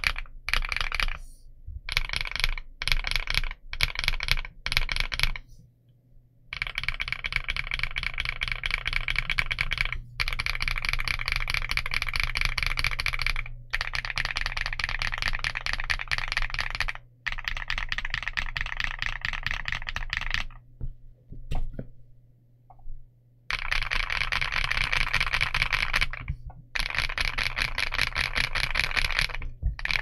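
A KiiBOOM Loop65 mechanical keyboard with KiiBOOM Matcha Latte linear switches and dye-sub PBT Cherry-profile keycaps being typed on. Short clusters of keystrokes come first, then fast continuous typing broken by brief pauses and a lull of a couple of seconds past the middle.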